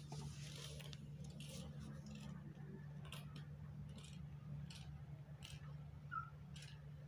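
Kittens play-fighting on a woven rag rug: faint, irregular scratchy ticks of paws and claws on the fabric over a low steady hum, with a brief high squeak about six seconds in.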